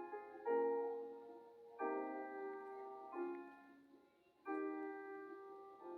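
Background piano music: four slow chords, each struck and left to ring and fade before the next.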